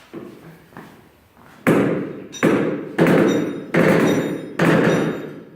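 A run of heavy hammer-like blows on steel, about one every three-quarters of a second, each ringing briefly, after a few light knocks.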